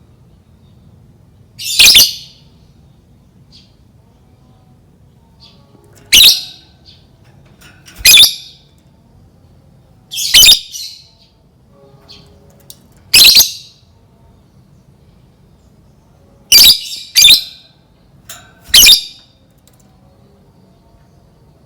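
Lovebird giving shrill, agitated squawking calls: about eight short bursts a couple of seconds apart, with two pairs close together near the end, over a faint low hum.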